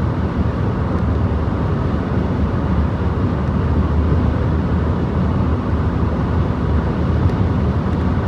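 Steady low rumble of a car driving, heard from inside the cabin: road and engine noise with no change in pace.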